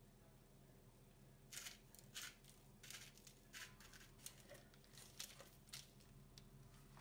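About a dozen short, sharp handling noises, as of something being cut, torn or handled during food preparation, starting about a second and a half in and dying away near the end.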